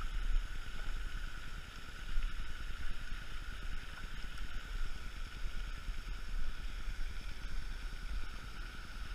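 Low wind rumble buffeting the microphone, with a steady high-pitched drone running underneath.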